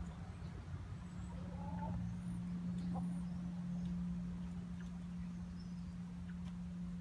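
A steady low hum under faint, scattered chirps of small wild birds, with one brief soft call about two seconds in.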